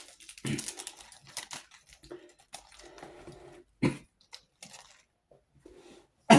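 Packaging being handled: soft, irregular rustling and crinkling with scattered small clicks, one a little sharper about four seconds in. A short cough comes right at the end.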